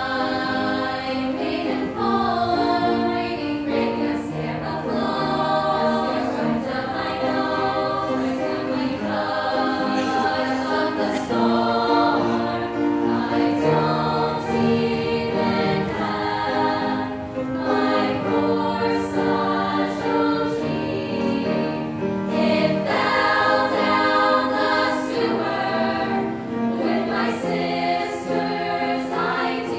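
Women's chamber choir singing in harmony, with sustained chords that move from note to note.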